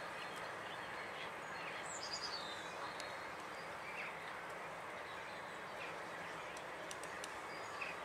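Faint wild birdsong over a steady outdoor hiss: a short descending trill about two seconds in and a few single chirps, with some faint sharp ticks.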